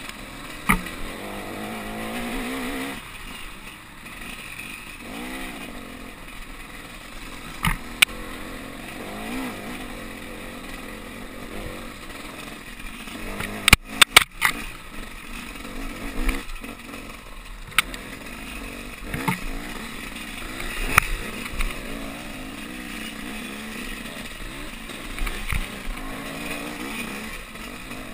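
Dirt bike engine revving up and down as it is ridden over a rough trail, with sharp knocks from bumps jolting the bike and camera, a tight cluster of them about halfway through.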